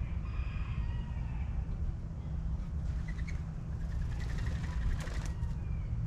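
Birds calling over a steady low rumble: a few calls shortly after the start, then a quick run of chirps about four to five seconds in.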